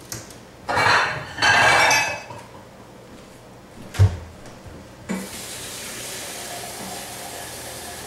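Kitchen tap running steadily, filling a measuring cup with water, from about five seconds in. Before it come two short, louder bursts of noise and a single sharp knock about four seconds in.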